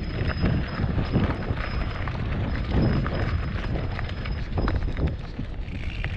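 Mountain bike rattling and clattering over rough desert ground in irregular knocks, with wind buffeting the microphone as a steady low rumble.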